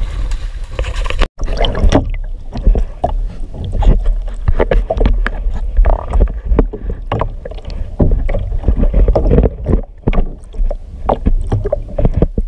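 Live red grouper being handled in a plastic tub of water, making irregular knocks and sloshing over a steady low rumble. There is a brief drop-out about a second in.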